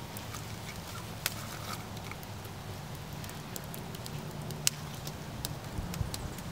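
Wood campfire crackling, with scattered sharp pops; the loudest come about a second in and again near five seconds.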